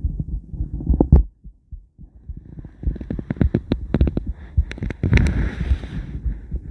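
Ultrasound heartbeat sound from a scan of a woman's heart, pulsing steadily. It drops out for about a second, then returns with sharp clicks and a stretch of hiss over the beats.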